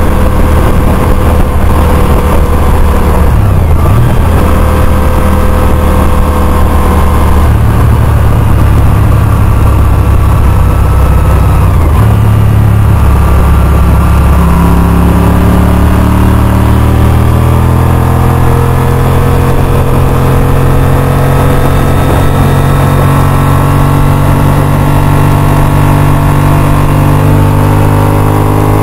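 Honda RC51 sport bike's V-twin engine running under way, heard from on the bike. Its pitch dips briefly about four seconds in, then rises slowly and steadily through the second half as it accelerates.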